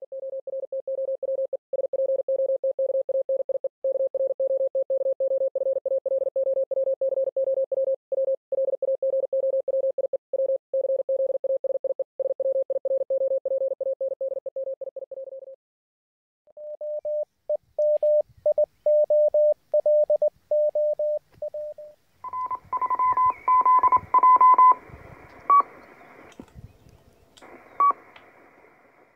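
Morse code: a single steady tone keyed on and off in rapid dots and dashes for about fifteen seconds. After a short gap a slightly higher keyed tone follows, and about three-quarters of the way in a higher, noisier keyed tone with clicks takes over.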